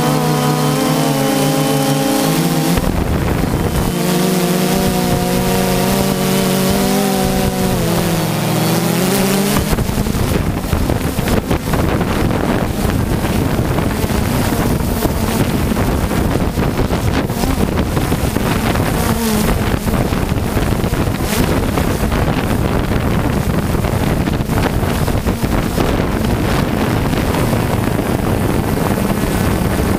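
A camera drone's motors and propellers buzz close to the microphone. For the first ten seconds the pitch wavers and dips, then the sound becomes mostly a steady rushing noise with wind on the microphone.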